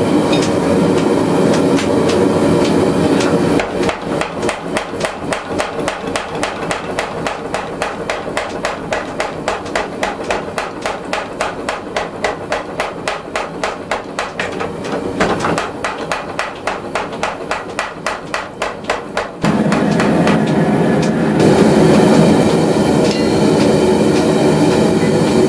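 Mechanical power hammer striking a glowing high-carbon railroad spike in rapid, even blows, about four a second, for roughly fifteen seconds, drawing out the steel. Before and after the run of blows, a steady loud noise of shop machinery runs on.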